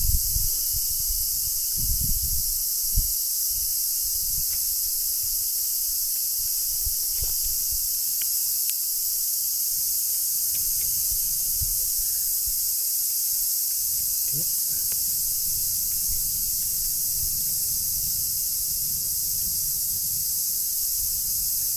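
Wind buffeting the microphone in uneven low gusts over a steady high-pitched insect chorus, with a few faint clicks.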